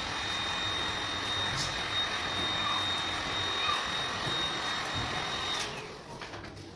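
A small electric motor tool, fan-like, running steadily with a thin high whine, then cutting off sharply about five and a half seconds in.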